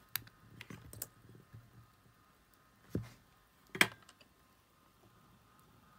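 Small clicks and taps from hands handling a remote control's tiny circuit board and its wires: a dull knock about three seconds in and a sharp click just before four seconds, the loudest sound, over a faint steady hum.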